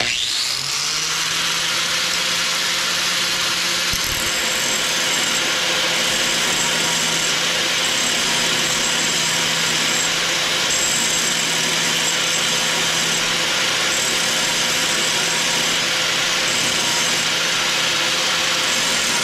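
Electric angle grinder spinning up with a rising whine, then running steadily at full speed while its disc grinds a high-speed steel lathe tool bit, giving a constant motor hum under a dense grinding hiss.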